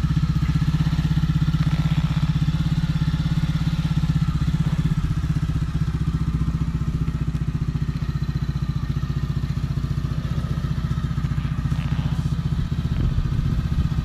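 Water-cooled 150cc Lifan single-cylinder engine of a Chinese Honda CBR clone idling steadily through its aftermarket exhaust, a loud even putter with no revving. It is a first test run to check that the engine runs.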